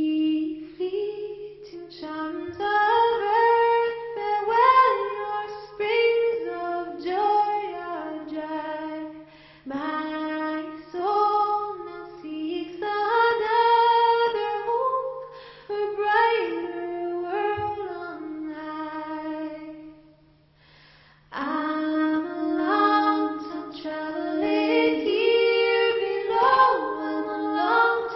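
A woman singing a wordless melody in phrases, breaking off briefly about twenty seconds in, over a steady low hum.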